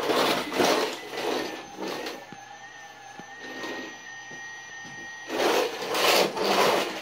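Toy vacuum cleaner pushed back and forth over a hardwood floor, rasping in strokes about twice a second. The strokes stop for about three seconds in the middle, leaving a faint steady high tone, then start again.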